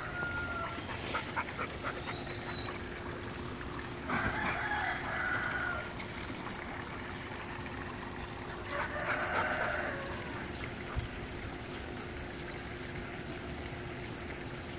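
Three drawn-out animal calls a few seconds apart: one at the start, one about four seconds in, one about nine seconds in. A faint steady hum lies underneath.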